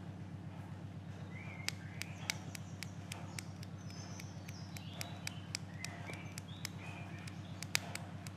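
Irregular sharp clicks and snaps from tapping a 12-volt battery jumper wire onto a motorcycle ignition coil's signal wire, firing the coil so the plug sparks. The CDI is bypassed. The loudest snaps come about a second and a half in and near the end. Birds chirp briefly in the background over a steady low hum.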